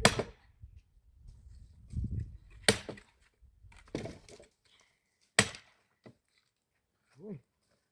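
Axe chopping wood: three loud, sharp strikes about two and a half seconds apart, with a lighter knock between the last two.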